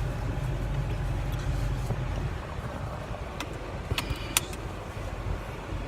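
Steady low rumble of a car, heard from inside the cabin, with a few sharp clicks a little after halfway through as a seatbelt is buckled.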